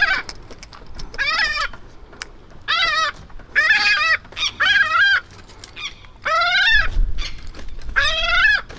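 A seagull calling over and over, about eight short, loud, pitched calls roughly a second apart, several of them bending down in pitch at the end.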